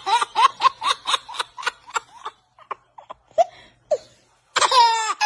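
A person laughing hard in a rapid string of pitched "ha"s, about four a second, that tapers off into a few short gasps, then a high laugh falling in pitch near the end.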